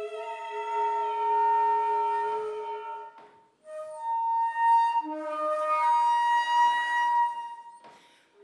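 Flute and mezzo-soprano voice holding long notes together, breaking off for a moment about three seconds in and then starting again.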